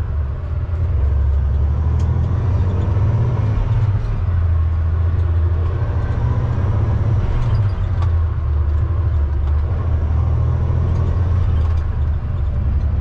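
Semi truck's diesel engine running steadily as the tractor-trailer drives along, a constant low drone heard from inside the cab.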